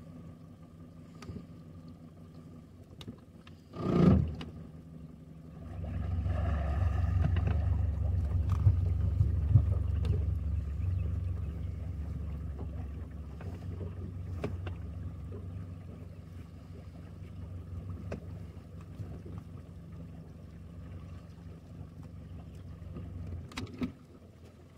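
Boat motor running with a steady low hum. About four seconds in there is a short loud thump, then from about five seconds a louder low rumble that slowly eases off.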